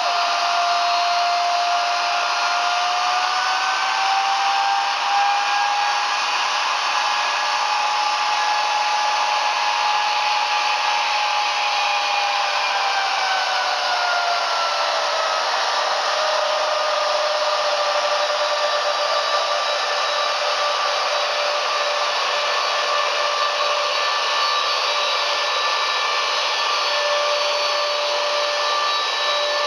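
C-5B Galaxy's General Electric TF39 turbofan engines running on the ground: a steady, loud rush of jet noise with a whine on top. The whine rises slightly about three seconds in and settles lower again around fifteen seconds in.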